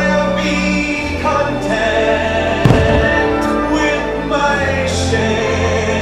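Orchestral fireworks-show music with a choir singing held chords, played loud over the show, with a few sharp bangs of bursting fireworks; the loudest comes about two and a half seconds in.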